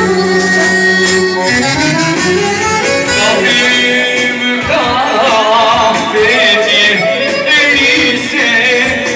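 Live amplified Albanian folk music: a male singer over a band with accordion and violin-like melody lines.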